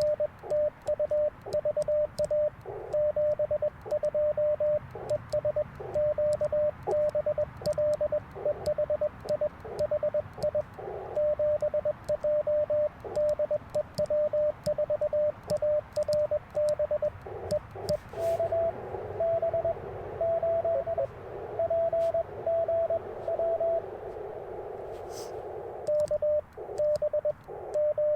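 Morse code from an Icom IC-705 transceiver: the operator sends with a twin-paddle key, heard as a steady keyed sidetone with sharp paddle clicks. About two-thirds of the way through, the other station's reply comes in, a slightly higher keyed tone in a band of receiver hiss, and then the sending sidetone returns near the end.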